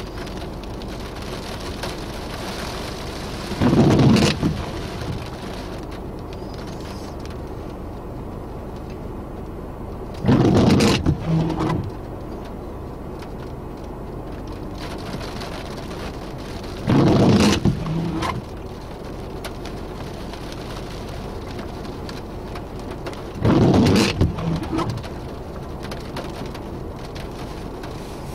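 Steady rain noise in a thunderstorm, broken four times by short, loud bursts of rushing noise about six to seven seconds apart.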